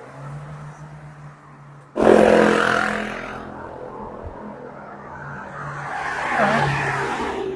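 Cars driving past on a street, tyre and engine noise: one passes loudly about two seconds in and fades away, then another approaches and swells near the end.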